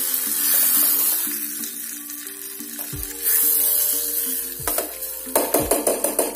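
Hot tempering oil with mustard seeds and curry leaves sizzling as it hits coconut chutney, the hiss fading over the first second or two. Near the end a steel spoon clinks and scrapes against the steel bowl in quick strokes as the chutney is stirred.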